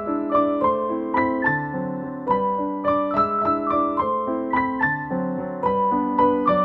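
Background piano music: a flowing melody of evenly struck notes, several each second, over sustained chords.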